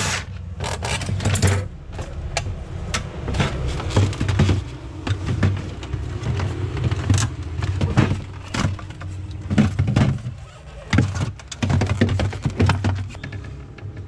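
Irregular plastic clicks, knocks and rattles as a refrigerator's temperature-control panel and defrost timer are pulled loose and their wire connectors handled, over a low rumble.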